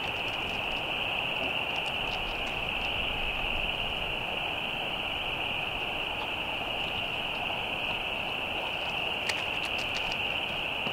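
A steady high-pitched hiss-like chorus that holds unchanged throughout, over a background hiss. A few faint light ticks come near the start and again about nine seconds in.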